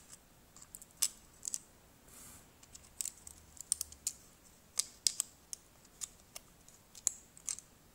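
Steel tweezers and fingers clicking and tapping against the small circuit board and plastic frame of an opened Cat S60 phone as the board is worked into place: scattered light, irregular clicks.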